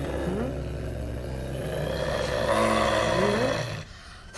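Angry caracal growling in a steady low rumble while being petted, twice rising into a short yowl; the growl stops shortly before the end. It is the sign of a cat annoyed and threatening to bite.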